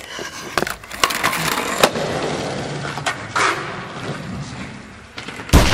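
Skateboard wheels rolling on the smooth concrete floor of a parking garage, with a few sharp clacks in the first two seconds, the rumble slowly fading. Near the end comes a loud bang that echoes on through the garage.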